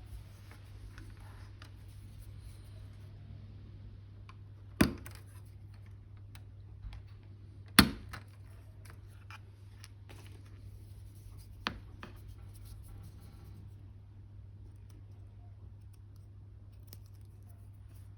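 Hobby sprue cutters snipping small model kit parts: three sharp clicks, a few seconds apart, the middle one the loudest, among faint handling and scraping of the parts over a steady low hum.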